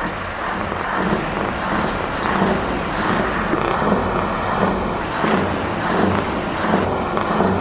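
Truck engine running through open, straight-piped exhaust, its sound swelling and easing in a regular pulse about every 0.7 seconds.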